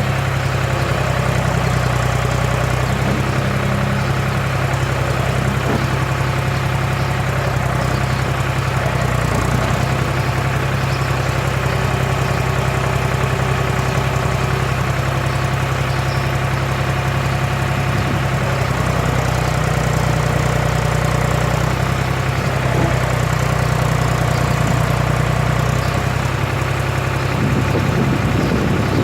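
The diesel engine of a 1970s John Deere 300B backhoe loader running steadily at idle, a little louder for a stretch past the middle, with a short clatter near the end.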